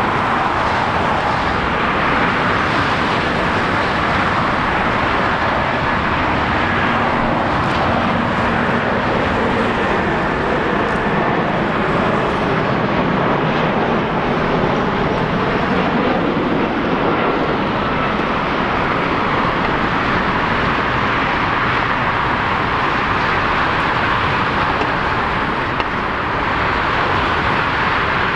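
Steady jet aircraft noise at an airport, an even rush of sound with faint thin whining tones here and there.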